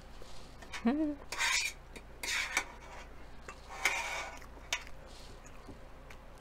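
Metal fork scraping on a metal sheet tray, three short rasping scrapes with a few light clicks as egg salad is scooped up. A brief hum of the voice comes about a second in.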